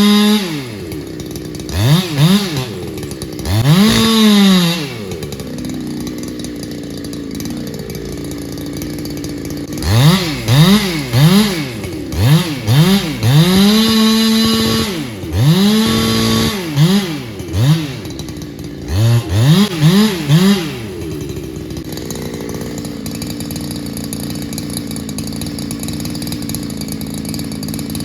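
Solo 681 two-stroke chainsaw being blipped again and again, the engine rising to high revs and falling back to idle, with a few revs held briefly at full throttle. It settles into a steady idle for the last several seconds.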